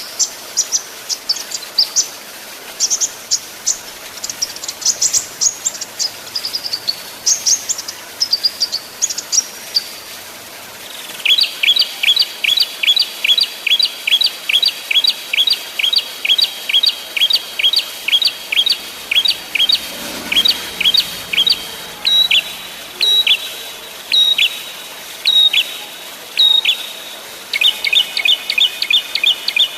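Small songbirds calling. The first third is high, varied twittering phrases. After a short pause comes a long run of sharp chirps, quickly repeated and each sliding down in pitch, which turns into a fast trill near the end.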